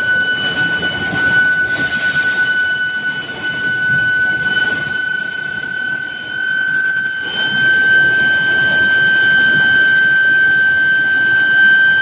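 Steel billet induction heating furnace running: a steady high whine from the induction coils, with fainter overtones above it, over a rough machine rumble from the roller conveyor drives. It grows a little louder about halfway through.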